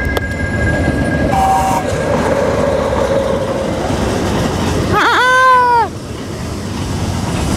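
Freight train of open gondola wagons rumbling past over a level crossing. About five seconds in, a man lets out one long, loud yell at the passing train.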